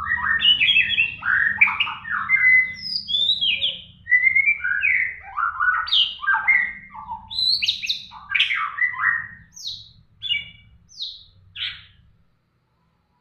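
White-rumped shama in full song: a fast, varied run of loud whistled phrases that thins to a few short notes and stops about twelve seconds in, over a low background hum.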